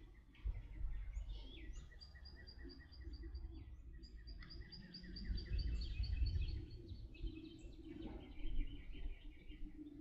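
Birds singing outdoors in trains of quick, repeated high chirps, over a low, uneven rumble of wind on the microphone.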